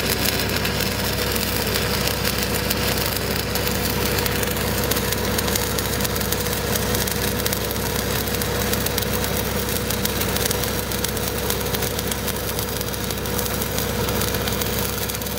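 Steady crackle and hiss of a stick-welding arc burning an E8010 cellulose pipeline electrode on a downhill fill pass on steel pipe, over the steady hum of an engine-driven welding machine running.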